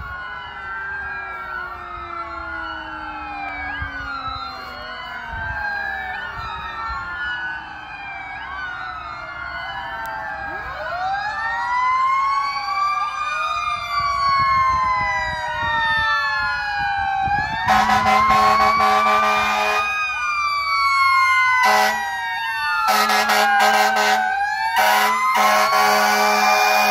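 Several fire engine sirens wailing at once, their rising and falling pitches overlapping and growing louder as the trucks approach. From about two-thirds of the way in, a fire truck's air horn sounds over them in a string of long and short blasts.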